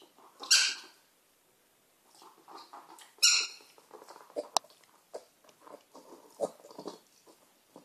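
Micro mini piglet squealing twice, short and high-pitched. Then soft grunts and snuffles as she noses about, with one sharp click about halfway.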